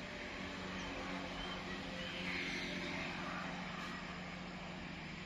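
Faint steady engine drone, with a few short high chirps over it.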